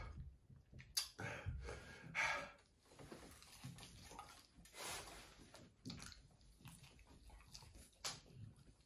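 Faint, wet mouth noises of a man biting into and chewing a sauce-covered chicken wing, in scattered short bursts.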